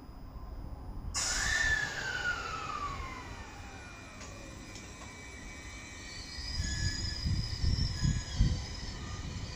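Electric train at a station: a whine that starts suddenly about a second in and falls steadily in pitch over a couple of seconds, followed near the end by low rumbling thumps from the running gear.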